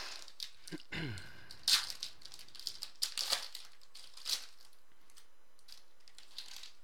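Foil trading-card pack wrapper crinkling and tearing open in the hands, in a run of sharp crackles over the first four seconds or so, then a few faint ticks as the cards are slid out.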